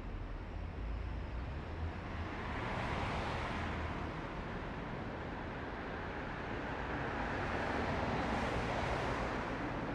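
Steady road and tyre noise of a car driving in city traffic, with a low rumble underneath. The noise swells about two and a half seconds in and again near the end.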